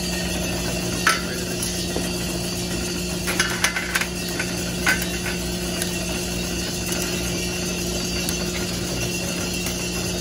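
Multi-barrel coffee sample roaster running with a steady hum, with scattered sharp pops of coffee beans in first crack: one about a second in, then a quick cluster around three to four seconds in and another just before five seconds.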